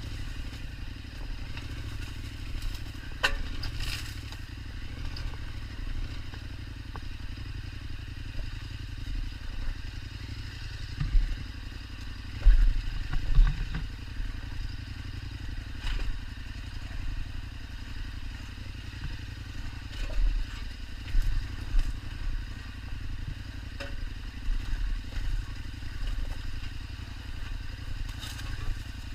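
KTM 1290 Super Adventure's V-twin engine running at low revs on a rough trail, with thumps from the bike jolting over the ground, heaviest about midway and again about two-thirds in. Occasional sharp clicks and clatter are heard over it.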